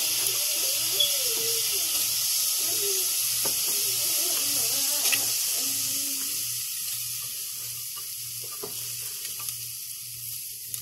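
A little water sizzling and hissing in a hot pot as cooked penne is dropped in, with a few faint knocks. The hiss eases off about six seconds in.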